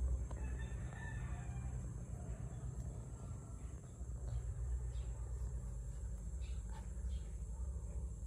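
A bird calls faintly in the background near the start, over a steady high-pitched whine and a low rumble. A few faint clicks follow later.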